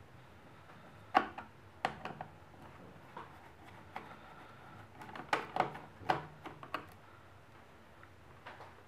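Scattered light clicks and taps of a small screwdriver and fingers on a laptop's plastic and metal chassis as the single screw under the keyboard is removed, with a cluster of quick clicks between about five and seven seconds in.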